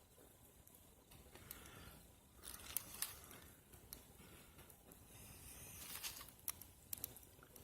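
Faint crackling and rustling of small twigs and tinder, with a few sharp snaps and clicks.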